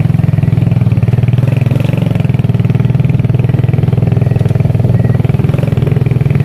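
A small engine running steadily at an even speed, with a rapid, unbroken beat and no revving.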